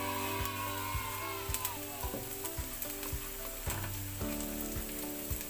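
Diced onions and garlic sizzling in hot oil in a nonstick wok, with a spatula scraping and tapping the pan now and then as they are stirred toward browning.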